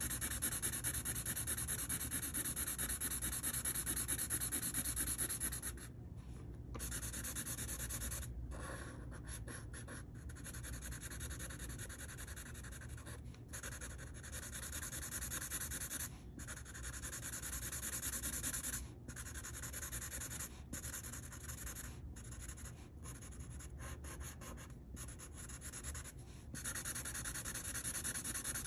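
Sharpie permanent marker shading on paper in quick back-and-forth strokes, a continuous rubbing of the felt tip on the page. It breaks off briefly now and then as the tip lifts.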